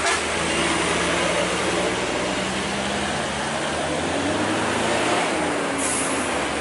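Diesel truck engines running steadily on the road, with one engine's pitch rising and falling about four to six seconds in. A short, sharp hiss comes near the end.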